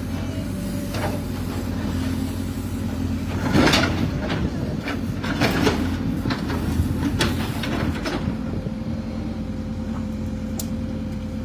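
An engine running steadily under scattered knocks and clatters, with one louder clatter a little before four seconds in.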